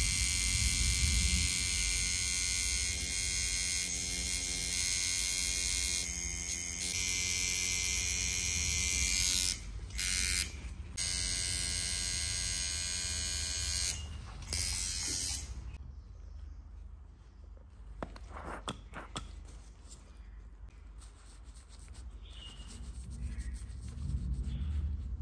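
Coil tattoo machine buzzing steadily as it drives the needle into skin; it stops and restarts a few times, then stops for good about fifteen seconds in. After that, much quieter rubbing as a gloved hand wipes foam over the skin.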